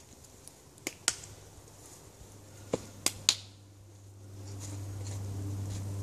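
Five sharp hand claps: two about a second in, then three in quick succession near the middle. After them a steady low hum rises and holds.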